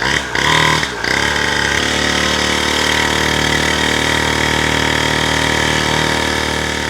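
Mini dirt bike's small engine running, uneven for about the first second, then steady, with a freshly fitted carburettor and running smoothly.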